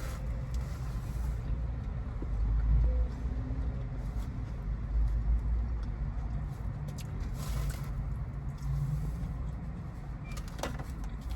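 Low steady rumble inside a car, with a few short clicks and rustles from food being handled and eaten.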